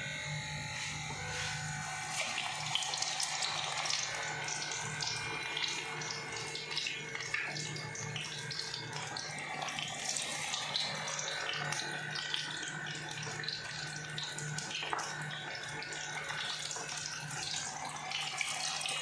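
Batter-coated chicken pieces, freshly added, deep-frying in hot oil in a kadhai: a steady sizzle with scattered crackles. A low steady hum runs underneath.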